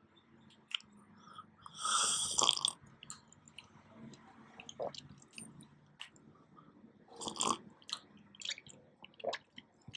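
Close-up slurping of a drink: two long, noisy slurps, one about two seconds in and another about seven seconds in, with small wet mouth clicks and lip smacks between.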